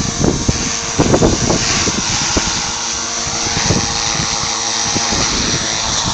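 Electric Align T-Rex 450 Sport RC helicopter flying, its motor and rotor making a steady whine, with gusts of wind buffeting the microphone in a few low thumps about a second in and again near four seconds.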